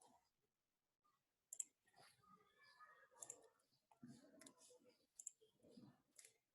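Faint, irregular clicks of computer keyboard keys, about a dozen spread over a few seconds, in near silence: typing a line of code.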